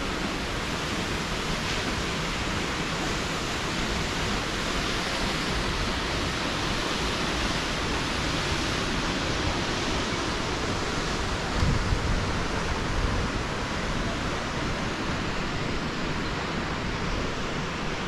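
Steady, even rushing of a tall waterfall, the Ouzoud Falls' water crashing down. A few brief low bumps come about twelve seconds in.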